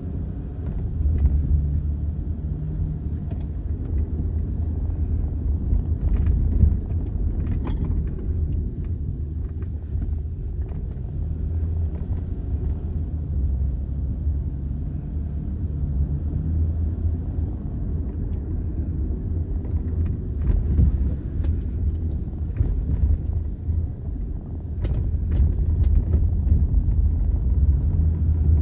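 A car driving, with a steady low rumble of engine and road noise and a few faint clicks and rattles over it.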